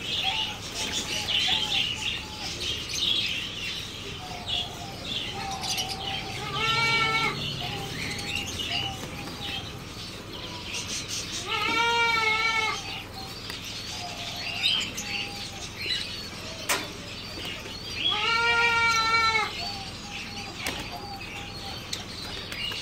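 Flock of pigeons fluttering and flapping their wings as they crowd a hand to feed, with three drawn-out, wavering bleat-like calls about five seconds apart.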